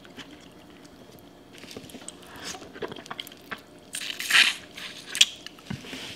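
Wet squishing and dripping of a sauce-covered shrimp being handled in a seafood boil. A loud bite into the shrimp comes about four seconds in, followed by mouth smacks and chewing.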